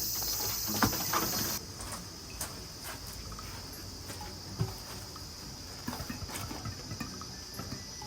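Insects chirring in a steady high-pitched drone, one louder layer cutting off about one and a half seconds in, with scattered light clicks and knocks from close handling.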